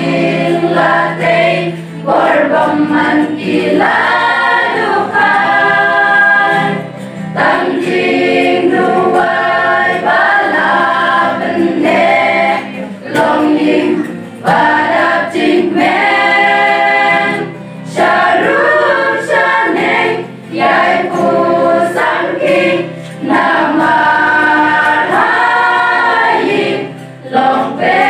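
A group of women singing a Khasi hymn (jingrwai) together at a microphone, in sung phrases broken by short pauses for breath every few seconds.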